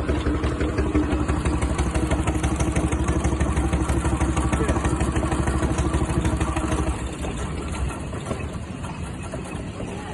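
An engine running with a fast, even exhaust beat. The beat drops away about seven seconds in and turns much quieter.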